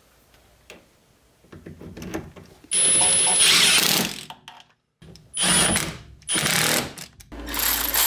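Cordless power tool running in about four short bursts with a thin high whine, driving bolts: first at the steering rack joint, then at a wire harness mounting bracket. Faint clicks come before the first burst.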